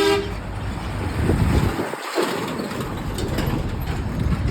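A truck horn blast cuts off just at the start, followed by the low, uneven rumble of heavy truck traffic on the road: engine and tyre noise.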